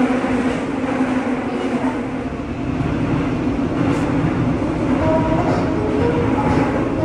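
Seoul Subway Line 5 train heard from inside the car: the steady rumble of the running train, with a hum of steady tones over it.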